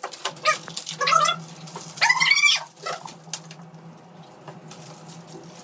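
Candy and chocolate wrappers crinkling as they are torn open by hand. Over this come four short high-pitched squealing cries, the longest and loudest about two seconds in.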